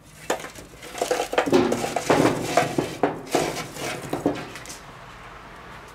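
Glowing charcoal briquettes being tipped out of a metal chimney starter onto a steel fire table, clattering and clinking for about four seconds, most densely in the middle. The clatter then dies away.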